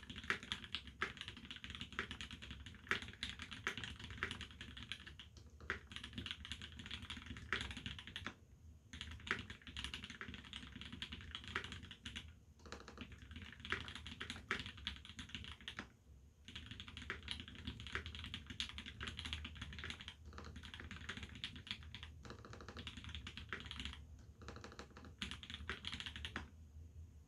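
Fast continuous typing on a mechanical keyboard with a brass plate, lubed C³ Tangerine R2 linear switches and GMK WoB doubleshot ABS keycaps, with a few brief pauses between bursts.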